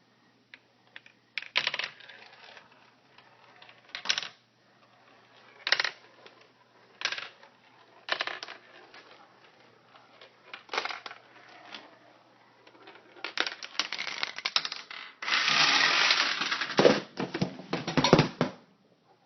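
A homemade Rube Goldberg machine running: single sharp clicks and knocks of small objects a second or two apart, then a quick run of clatter, and near the end a loud rattling rush of about two seconds followed by more clattering as the final pieces fall.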